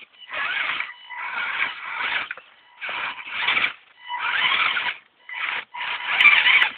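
Axial SCX10 Honcho RC crawler's Orion 19-turn brushed electric motor and gear drive whining in about six short bursts of throttle as it climbs over logs, with a steady high tone under the bursts; the last burst, near the end, is the loudest.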